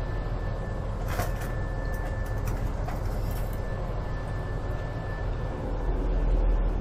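Steady low drone of a ship's engines and machinery, heard from inside the vessel, with a thin steady whine over it. There is a light clatter about a second in.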